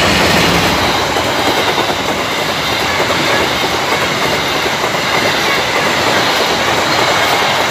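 Passenger train coaches passing at speed close by: a loud, steady noise of wheels running on the rails.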